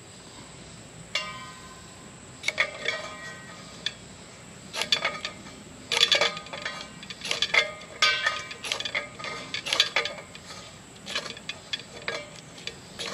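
Ferrocerium rod struck with a scraper over a Solo Stove to light cotton and fatwood shavings in wood pellets. The sound is a series of sharp scrapes in quick groups, starting about a second in and continuing to the end, with metallic clinks and a brief ring after many strokes.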